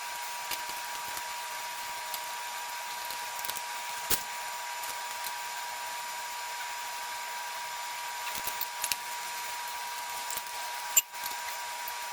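Occasional light clicks and knocks of hand tools and metal engine parts during teardown of a chainsaw-based bike engine, over a steady hiss with a thin constant whistle-like tone.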